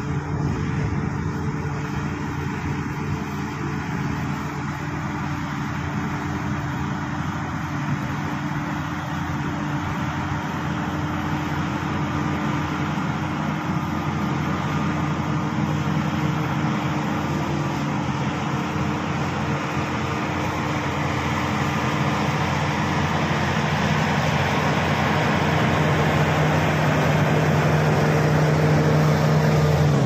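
Shantui SD16 crawler bulldozer's diesel engine working under load as it pushes a heap of wet mud, a steady hum that grows gradually louder as the machine draws near.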